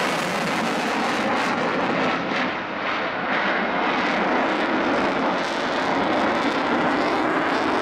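Eurofighter Typhoon's twin Eurojet EJ200 turbofans in afterburner: a loud, steady jet rush from the fighter in display flight, dipping slightly for a moment about two and a half seconds in.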